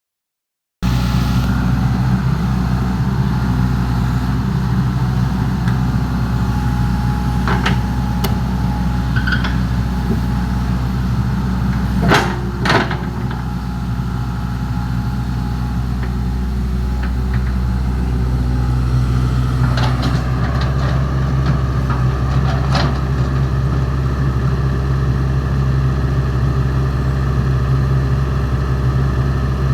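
Excavator's diesel engine running at a steady idle, with a few sharp knocks over it, the loudest two close together about twelve seconds in.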